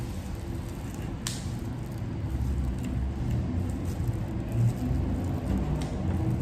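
Knife cutting on a chopping board, heard as dull low bumps and rumble through the table, with a few light clicks.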